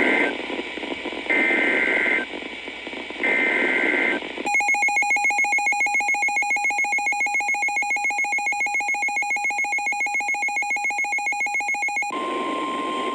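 Emergency Alert System tones over NOAA Weather Radio. First come the tail of one burst and two more full bursts of screechy SAME header data, each about a second long, with radio hiss between them. Then comes about eight seconds of a pulsing EAS attention tone, and near the end the steady single-pitch 1050 Hz weather-radio warning alarm tone starts over static.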